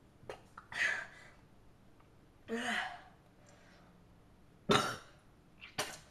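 A boy coughing and clearing his throat in a run of about five short coughs, the sharpest two near the end, just after gulping down a raw egg and feeling queasy.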